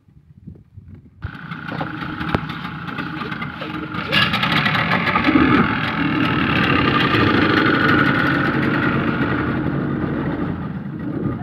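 Twin outboard motors of a small passenger speedboat running, heard close up. The engine noise comes in suddenly about a second in, grows louder around four seconds in, then holds steady.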